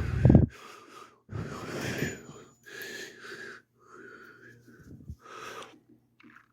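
A person breathing noisily close to the microphone: a run of wheezy breaths about once a second, with a low thump at the start.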